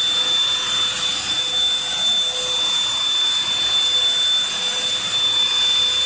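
Vacuum cleaner motor running steadily, with a high whine over the airflow noise.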